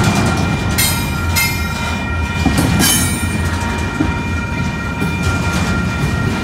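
Double-stack intermodal freight train rolling past close by: a steady rumble of wheels on rail, with a few brief high squeals of wheel on rail in the first three seconds. Steady ringing tones from the grade crossing's warning bell carry on underneath.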